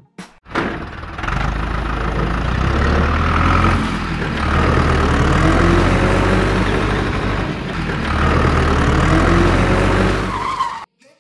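Toy tractor's motor running steadily while hauling a trolley loaded with bricks over sand, dipping briefly twice and cutting off abruptly near the end.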